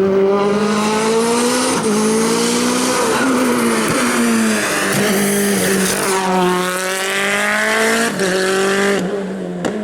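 Race car engine at high revs, its pitch held high and dipping and climbing again every second or two through gear changes and lifts.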